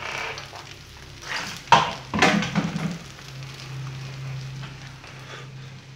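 An egg omelette frying in oil in a small wok, a light sizzle throughout. Two sharp clattering knocks about two seconds in are the loudest sounds.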